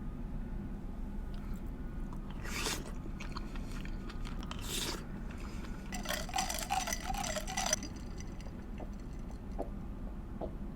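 Close-miked eating sounds of gumbo and potato salad: chewing and wet mouth noises, with short bursts about three and five seconds in and a longer one of over a second about six seconds in, then small smacking clicks near the end.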